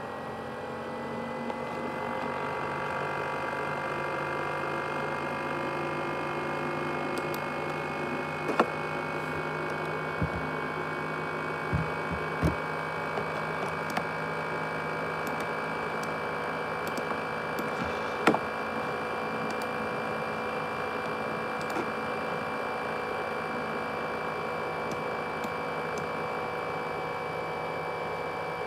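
ASUS X543UA laptop's CPU cooling fan running with a steady whine of several tones, its pitch creeping up over the first few seconds as it speeds up, then holding. A few sharp clicks and low knocks sound over it.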